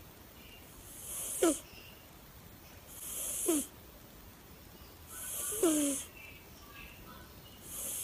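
Sleeping black-and-white cat snoring. Each breath, about every two seconds, is a hiss that grows louder and ends in a short squeaky whistle dropping in pitch.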